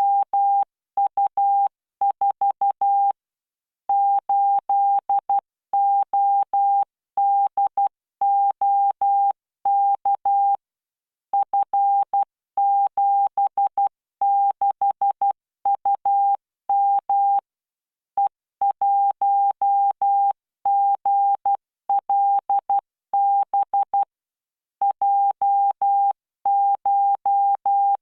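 Computer-generated Morse code practice at 12 words per minute: a single steady beep keyed on and off in dots and dashes, with short gaps between letters and longer pauses between words, from the LearningMorse CW training software.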